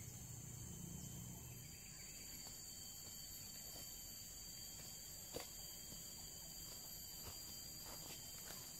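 Steady high-pitched drone of forest insects. From about halfway in come a few sharp crackles of boots stepping on dry leaf litter.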